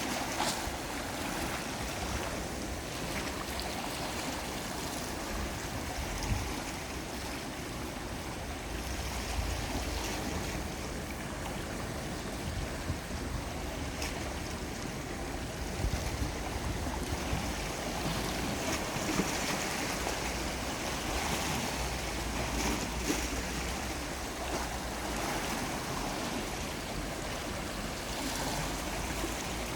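Calm sea waves washing in steadily, with a few brief louder splashes and a low rumble underneath.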